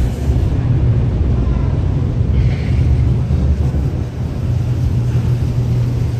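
Steady low rumble of a car ferry under way, heard from its open deck.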